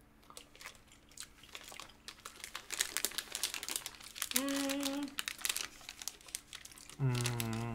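Thin plastic snack wrapper crinkling as it is handled and pulled open, in dense rapid crackles that grow busier toward the middle. There is a short hummed 'mm' about four and a half seconds in, and a voice starts near the end.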